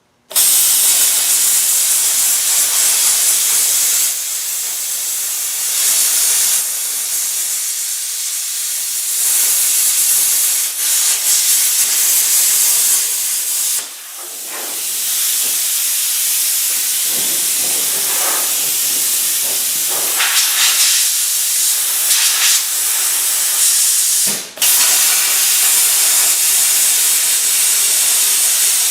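Hypertherm Powermax 45 plasma torch hand-cutting steel with a drag tip: a loud, steady hiss of the air-plasma arc that starts abruptly, with two brief dips, about halfway and near the end.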